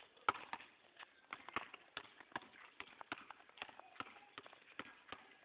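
Basketball dribbled on a concrete court: quick, irregular bounces, several a second, the loudest about a third of a second in.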